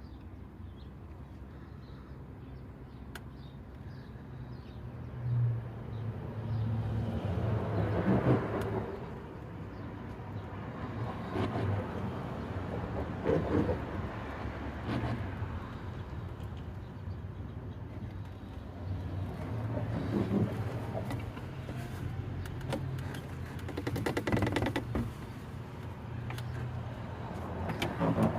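Motor oil being poured from quart bottles through a funnel into the engine's oil filler, coming in several swells a few seconds long over a steady low hum.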